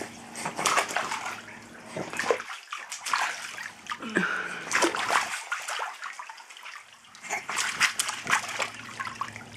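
A baby's hands slapping and paddling at pool water, making irregular splashes and sloshing.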